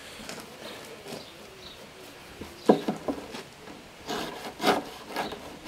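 A fixed-blade Mora No. 2 knife sawing through a rope tail against a pine crate, with about four rasping back-and-forth strokes in the second half. A single sharp knock, the loudest sound, comes about halfway through.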